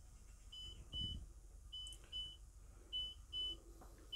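Bus dashboard warning beeper sounding with the ignition on and the engine not running: a high double beep repeating about every 1.2 seconds. A soft low bump comes about a second in.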